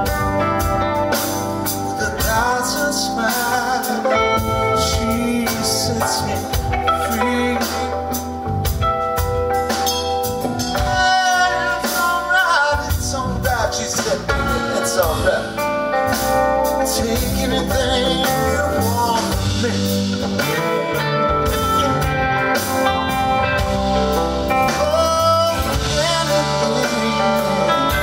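Live blues band playing: a male voice singing over electric guitar and a drum kit, the guitar playing lead lines with bent notes.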